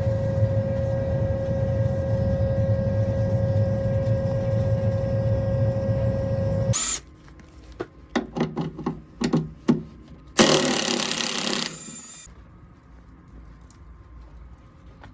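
John Deere S660 combine running steadily with a constant whine, which stops abruptly about seven seconds in. A string of short clicks and scrapes follows, then a loud rasping burst of about two seconds, then quiet.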